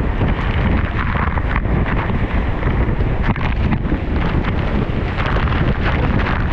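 Steady loud rushing of a waterfall, with wind buffeting the microphone in uneven gusts.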